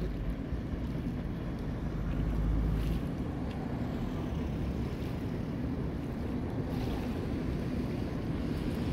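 Steady low rumble of a passing paddle steamer, its paddle wheels churning the water, with wind buffeting the microphone.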